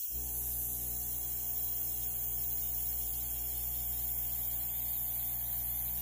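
Small airbrush compressor running with a steady hum, and compressed air hissing from a Master gravity-feed airbrush as it blows alcohol ink across glossy paper.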